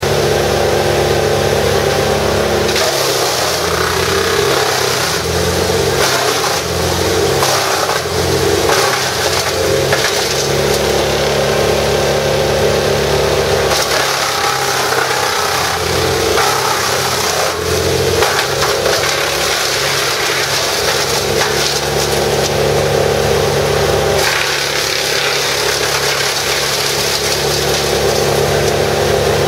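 Vermeer BC1000XL brush chipper running at working speed while branches are fed through, with a dense noise of wood being cut to chips. The engine note steps down and back up several times as the branches load the cutter.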